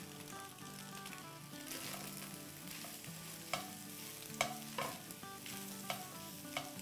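Silicone spatula stirring and scraping scrambled eggs, minced meat and potatoes around a hot nonstick frying pan, with a faint sizzle. A few short clicks of the spatula against the pan come in the second half.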